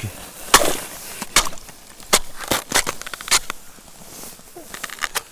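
Thin skim ice in an ice-fishing hole cracking and crunching as it is broken through, a string of sharp separate cracks.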